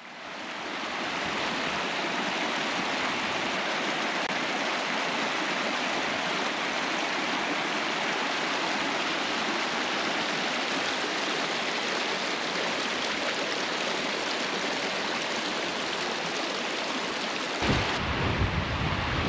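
A small mountain creek rushing and splashing over rocks in a steady, even stream.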